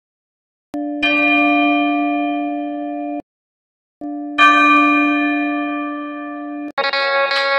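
Two long bell tones, each about two seconds, that cut off abruptly with a short silence between them. Near the end, plucked-string music begins.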